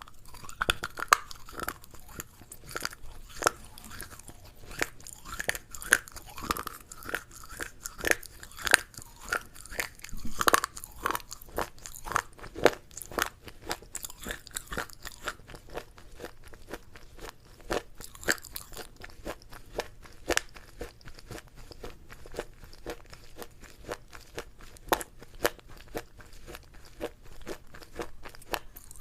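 Close-up chewing and crunching of crisp food, a dense irregular run of sharp cracks and crunches.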